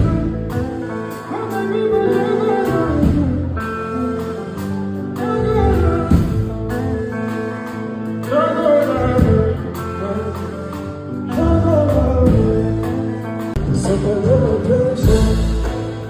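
A male singer singing over band music, with sung lines over sustained instrumental chords and bass.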